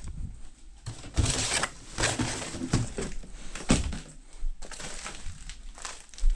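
Plastic wrapping crinkling and rustling in irregular bursts as a taped-up packaged part is handled, with a few dull knocks from the handling.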